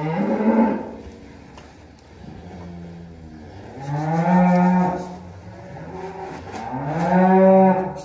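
Beef cattle mooing: three loud, long moos about three seconds apart, each lasting around a second, with a fainter moo between the first two.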